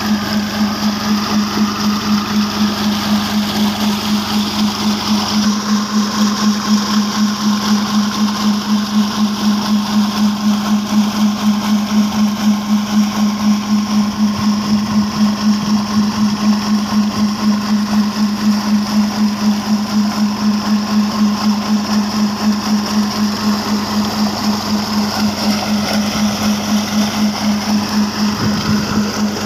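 A tractor's diesel engine running at a steady speed, driving a tubewell pump, with a low hum that pulses evenly; water gushes from the outlet pipe into a concrete channel.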